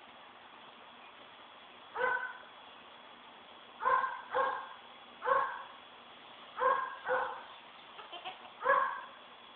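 Short animal calls, about seven, coming singly and in pairs at uneven intervals, each sharp-edged and quickly fading.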